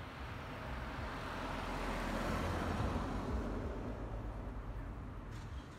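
A car driving past close by, its tyre and engine noise swelling to a peak about halfway through and then fading away.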